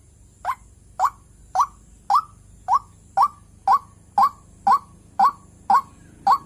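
Female white-breasted waterhen (ruak-ruak) giving her lure call to draw in males: a steady run of short, sharp, upward-sweeping calls, about two a second.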